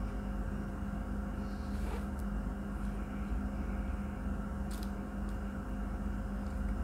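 Steady mechanical hum of the room, with a few faint rustles and taps about two and five seconds in as a camera body is pulled out of its soft fabric wrap and handled.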